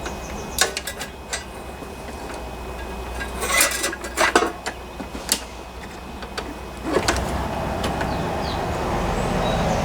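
Handling noise from tools and mower parts: scattered light clicks and clinks, a cluster of louder knocks about three and a half to four and a half seconds in, then a steady rushing noise from about seven seconds in.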